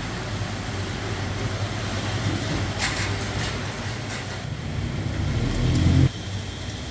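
Steady low machine hum with a few clicks about three seconds in, growing louder and then cutting off abruptly near the end.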